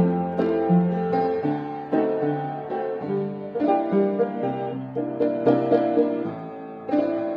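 Piano playing an instrumental break in a slow song: chords over a bass line that moves note by note, with no singing.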